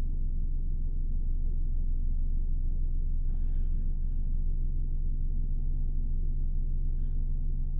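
Steady low rumble of an idling engine, even throughout, with a faint brief rustle about three seconds in.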